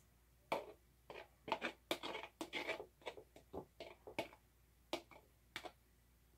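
A metal spoon scraping and tapping inside a plastic tub as the last of the pumpkin butter is scooped out into a measuring cup: a run of short, irregular scrapes and clicks.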